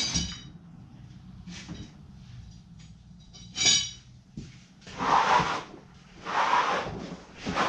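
The balloon tyres of a Yamaha three-wheeler scuffing twice on a concrete floor as the machine is dragged round by hand. A short clatter comes before them, about three and a half seconds in. The engine is not running.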